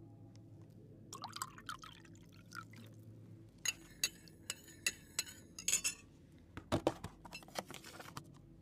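Tea poured in a thin stream from a metal teapot into a glass cup, the liquid splashing as the glass fills. A run of sharp ticks and clinks comes around the middle.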